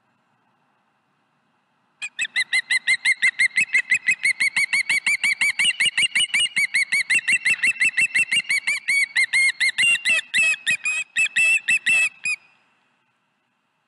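Osprey calling: a fast, even series of short whistled chirps, about five a second, starting about two seconds in and stopping abruptly near the end.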